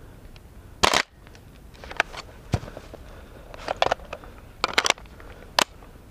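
Airsoft guns firing: a few short bursts of rapid shots and several single shots, each a sharp snapping crack.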